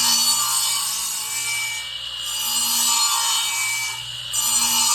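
Lathe gouge cutting into a spinning eastern red cedar blank on a small benchtop lathe, a rough scraping cut that comes in three passes over a low steady motor hum.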